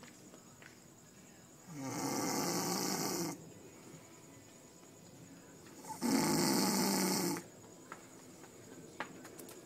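Snoring: two long, loud snores about four seconds apart, each lasting about a second and a half, with quiet breathing between them.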